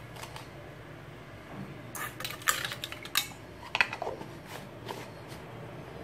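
Metal spoons clinking against each other and the rim of a clay mortar: a handful of sharp clinks between about two and four seconds in.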